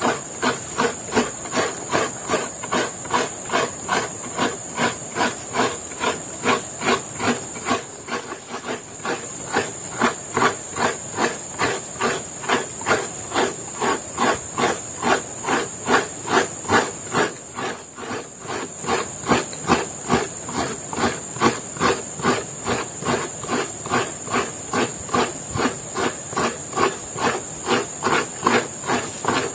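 A half coconut scraped by hand against a coconut scraper fixed to a log. The rasping strokes are steady and even, about two to three a second.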